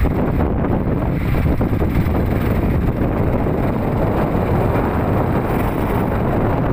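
Steady wind buffeting the microphone over the low, even rumble of a moving vehicle on the road.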